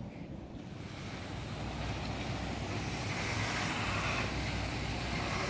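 Steady outdoor city background noise: a low rumble with a hiss over it, growing a little louder about a second in.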